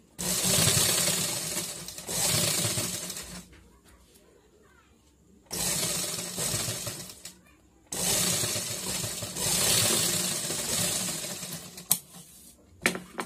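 Sewing machine stitching through fabric in three runs of a few seconds each, stopping and starting again as the seam is guided, followed by two sharp clicks near the end.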